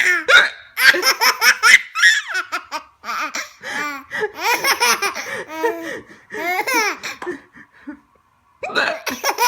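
A baby laughing hard in repeated bursts of quick, breathy laugh pulses, with a short pause about eight seconds in before the laughter starts again.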